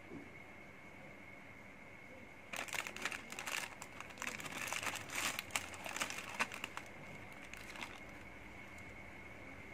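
Plastic snack packaging crinkling and crackling as hands pick wafer egg rolls out of a clear plastic tray. The crinkling starts about two and a half seconds in and lasts about four seconds.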